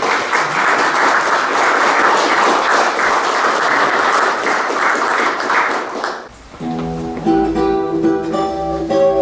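Audience applauding for about six seconds after a speech ends, then dying away, followed near the end by music starting.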